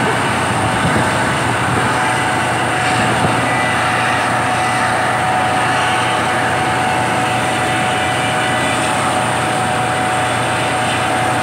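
Helicopter running on deck with its rotor turning: a steady mechanical noise with a thin, steady whine.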